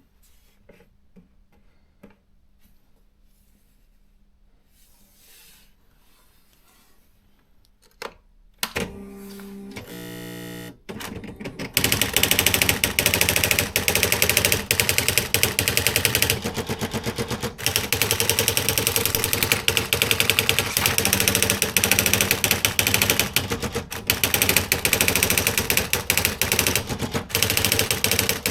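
Panasonic R540 electronic typewriter: a few faint clicks, then about nine seconds in a short, stepped mechanical whirr as the carriage moves. From about twelve seconds on it prints with a rapid, continuous rattle of strikes that runs on with only brief breaks.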